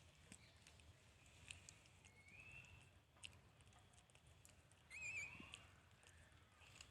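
Two faint, high-pitched wavering cries of a newborn monkey, one about two seconds in and a louder warbling one about five seconds in, among faint scattered clicks.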